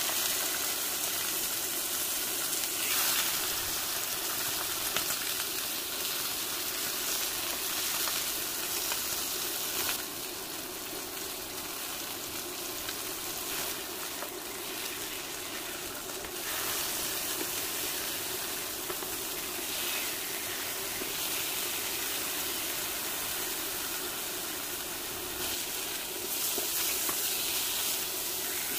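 Chicken breasts frying in hot oil in a nonstick frying pan, a steady sizzle.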